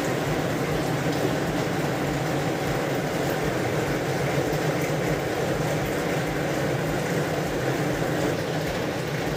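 Steady rushing hum of a stove burner heating cooking oil in an aluminium wok. The level stays even throughout, and there is no sizzle yet because the oil is not hot enough for frying.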